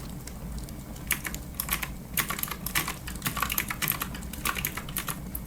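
Clicky mechanical computer keyboard being typed on, an irregular run of quick key clicks starting about a second in.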